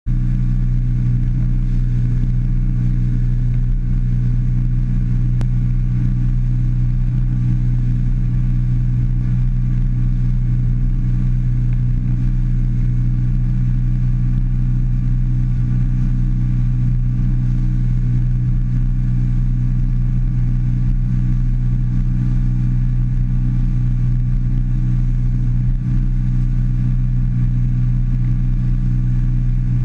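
A 150 hp outboard motor running at a steady cruising speed, driving the boat over open water: a loud, even engine drone that holds its pitch throughout.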